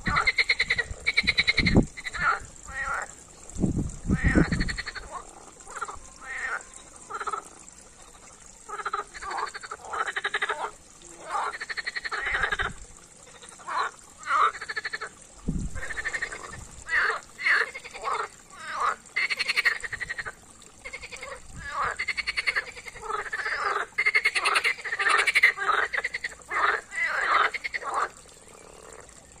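Green water frogs croaking in chorus: many short rattling croaks, one after another and overlapping, with few gaps. A few low thuds sound under the calls, the strongest about four seconds in.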